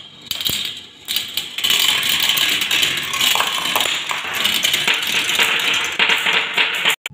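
Glass marbles rolling through a plastic marble run, clattering around a plastic spiral track and down its chutes in a dense run of small clicks and rattles. The sound builds about a second in and cuts off abruptly near the end.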